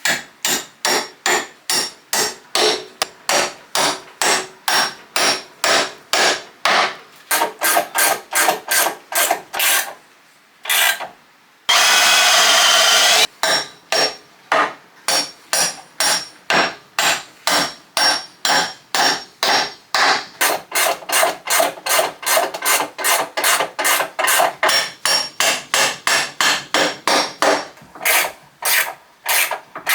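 Hand saw cutting 4x2 timber, steady back-and-forth strokes at about two and a half a second, with a short pause about ten seconds in. A louder steady noise of wavering pitch cuts in for about a second and a half around twelve seconds, then the even strokes go on.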